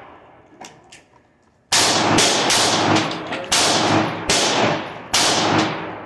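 Hi-Point firearm firing a rapid string of shots, starting about two seconds in, each report echoing in an indoor shooting range.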